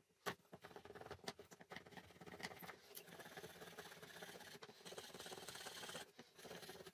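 Faint handling sounds in a workshop: a sharp click just after the start, then light clicks and a low scraping.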